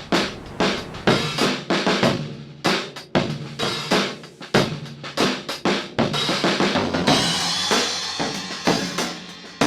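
Sampled drum kit from the Old Tape Drums Kontakt library playing a beat of kick and snare hits, with a cymbal ringing out about seven seconds in.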